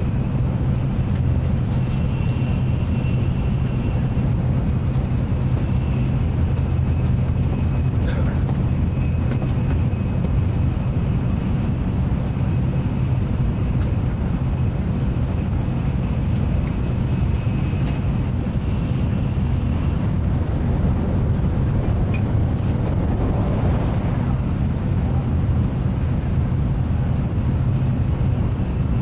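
Cabin of a Nozomi Shinkansen running at speed: a steady rumble with a low hum and a faint, high, steady tone.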